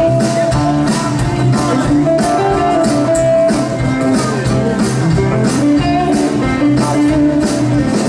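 Live band playing: acoustic guitar, electric guitar, electric bass and keyboard over a steady beat.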